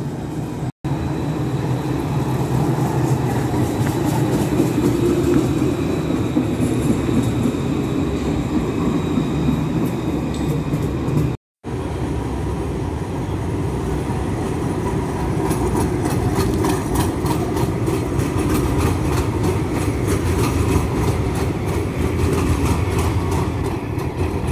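Electric trams running along street track: a steady rumble of steel wheels on rails with a faint high whine. The sound cuts out abruptly twice, about a second in and again around the middle, where clips are joined.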